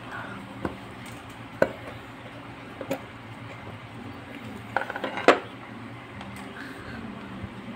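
Scattered sharp metallic clicks and clinks of a screwdriver and small metal parts on a motorcycle carburetor being taken apart to reach the float needle valve, with a quick cluster of louder clinks about five seconds in.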